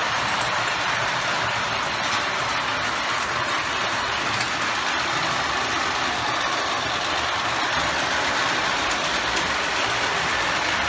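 Model train running steadily along the track: an LMC 4-4-0 model locomotive hauling coaches, giving an even, continuous running noise of its drive and wheels on the rails.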